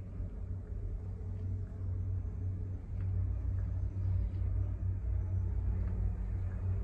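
Mitsubishi AXIEZ-LINKs passenger elevator car travelling upward, heard from inside the car as a steady low rumble and hum.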